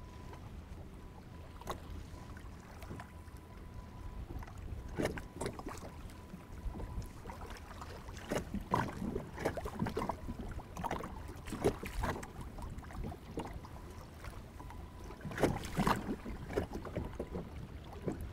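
Choppy lake water slapping and lapping against a plastic fishing kayak's hull in irregular splashes over a low steady rumble. The splashes come thicker from a few seconds in.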